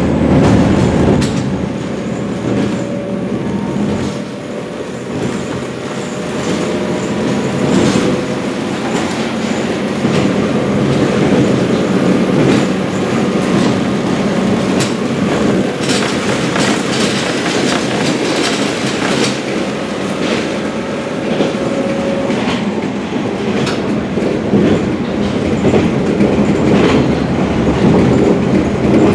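Diesel local train running, heard from inside the passenger car: a steady rumble with the clickety-clack of the wheels over rail joints, and a faint thin wheel squeal through the first two thirds.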